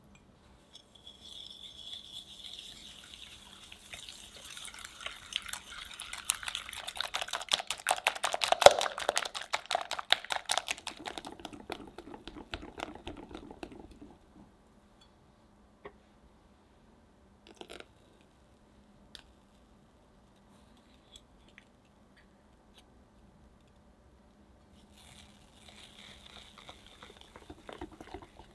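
A hand whisk beats eggs with sugar and salt in a glass bowl until foamy: a fast, wet rattle of whisk strokes against the glass, loudest in the middle. It stops about halfway through, leaving a few faint clicks, and starts again near the end.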